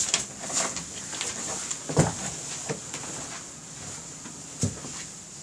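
A few scattered light knocks and clicks, the loudest about two seconds in and another near the end, over a faint steady high hiss.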